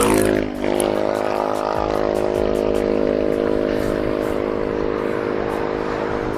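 A motor vehicle's engine running at a steady speed, an even hum with a short dip about half a second in.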